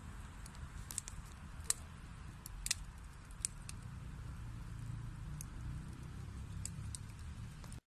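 Wood fire burning in a fireplace: a steady low rumble of flame with about ten sharp crackles and pops from the burning logs, the loudest in the first three seconds.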